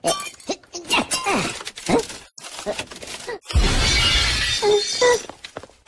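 Animated Minion squeaking and chattering in gibberish against a cracked pane of glass. About three and a half seconds in, the glass shatters with a loud crash that lasts over a second, and the Minion squeaks again near the end.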